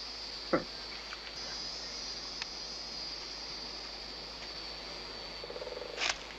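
Woodland ambience: a steady high-pitched chirring of insects, with a single sharp snap about half a second in and a rapid croaking trill near the end.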